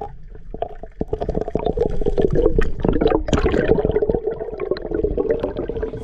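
Underwater sound picked up by a diver's camera: muffled water rushing and gurgling, with many small crackling clicks throughout.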